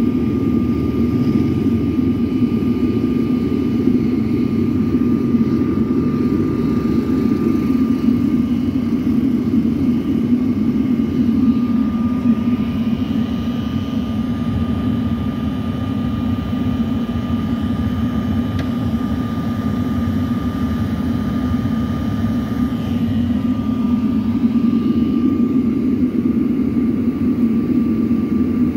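Homemade furnace firing: a steady, even rushing noise from its burner and air feed, with a faint steady whine above it.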